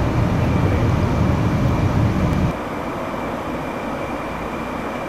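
Steady low rumbling background noise with a faint high hum, dropping abruptly to a quieter hiss about two and a half seconds in.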